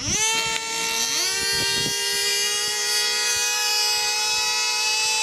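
Two small two-stroke model-aircraft engines of F2D control-line combat planes running at full throttle, a high steady whine. The first revs up right at the start, and a second joins, climbing in pitch about a second in before both hold steady.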